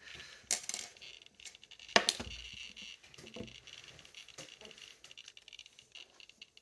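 Small objects handled on a hard surface: a sharp click about half a second in, a louder knock about two seconds in, and light tapping and rattling between.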